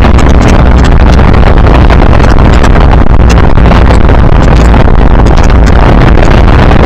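An open 1929 Ford Model A speedster driving at road speed: its engine running under a steady rush and buffeting of wind on the microphone. The recording is loud enough to distort.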